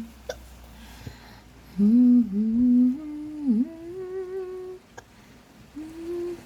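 A person humming a slow tune with sliding, wavering notes, starting about two seconds in, breaking off for about a second near the end and then carrying on. A couple of short clicks sound in between.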